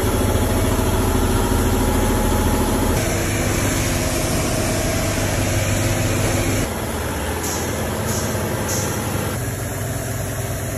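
Steady machinery hum of a car wash bay, like engines or washing equipment running, with the sound changing suddenly about three seconds in and again about two-thirds of the way through.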